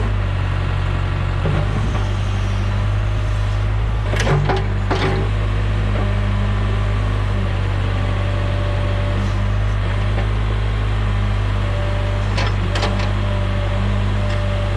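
John Deere 410 backhoe's diesel engine running steadily, with a few sharp cracks about four seconds in and again near the end.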